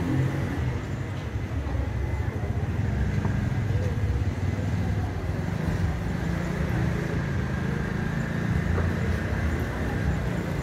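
Low, steady rumble of car traffic on a town street, with indistinct voices of passers-by.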